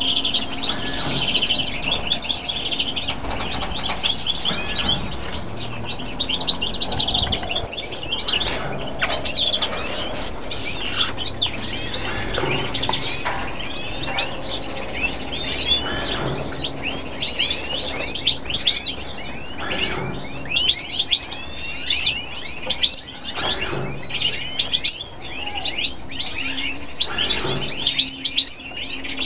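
Many small aviary finches chirping and twittering without pause: quick, overlapping high calls from several birds at once.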